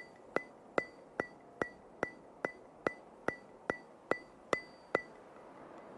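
Steady, even ticks, about two and a half a second, each with a short bright ring, like a metronome or clock. They stop about five seconds in.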